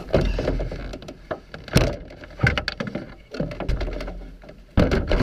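Canoe being handled and carried on a portage: irregular knocks and thumps as the hull, gunwales and yoke bump and shift, with a cluster of knocks near the end over a low rumble of handling noise.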